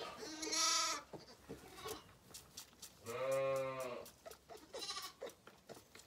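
Lambs bleating twice: a short call about half a second in and a longer, lower one about three seconds in, with soft clicks and rustling between.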